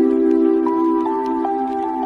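Soft new-age style music: sustained chords with a slow melody that steps through a few held notes.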